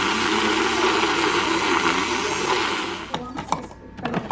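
Handheld battery milk frother whirring in a mug of warm milk, stopping about three seconds in. A few sharp clicks and knocks follow as a K-cup is loaded into a Keurig coffee brewer.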